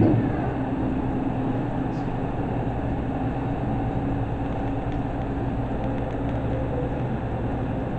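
Steady low hum with even background room noise, no change through the pause.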